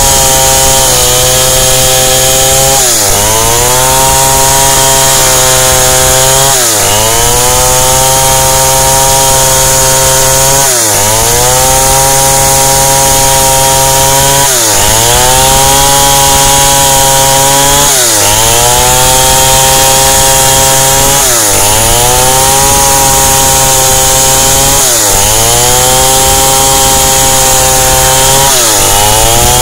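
Long-bar two-stroke chainsaw running at high revs while ripping lengthwise along a log. The engine pitch sags under load and climbs back about every four seconds.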